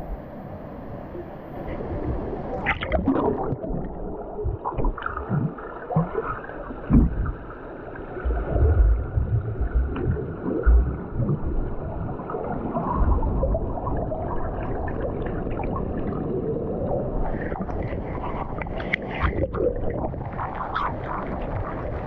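Lazy-river water sloshing and gurgling around an action camera dipped at and below the surface, dull and muffled while it is underwater, with irregular low thumps. Toward the end, brighter splashing comes in as the camera reaches a waterfall.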